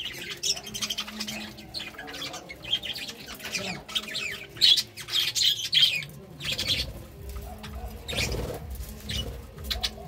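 Several budgerigars chattering and warbling in quick, high chirps. About two-thirds of the way in, a low fluttering rush of wing flaps comes as birds take off from the perch.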